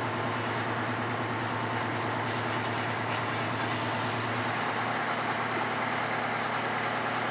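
Pressure washer spraying water against the side of a fire truck: a steady hiss of spray over a constant low motor hum.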